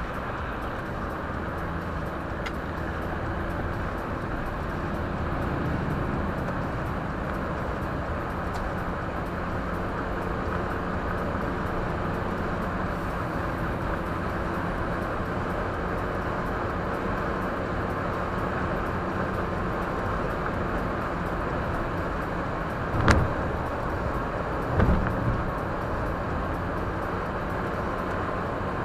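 Steady road and engine noise inside a moving car, picked up by a dashcam, with two short thumps about two-thirds of the way through.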